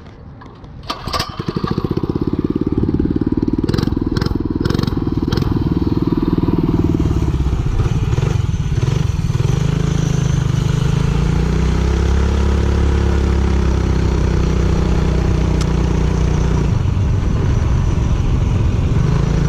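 Twin-engine minibike's two Predator 212 single-cylinder four-stroke engines running. They come in about a second in with a few sharp clicks, then hold a steady, loud drone whose pitch rises and shifts as the revs change.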